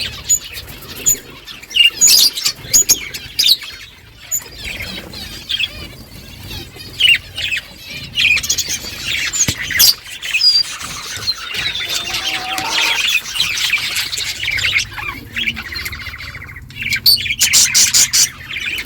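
A flock of budgerigars chattering: many short chirps and squawks overlapping continuously.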